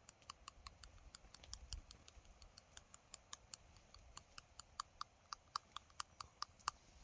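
Faint, light clicks at an even pace of about four a second: a spice shaker of paprika being shaken over vegetables.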